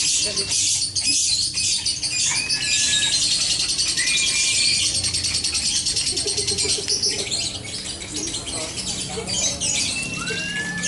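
Several caged songbirds singing at once: dense, high, fast chattering trills with clear whistled notes that slide up and down, and a stretch of especially rapid trilling around the middle.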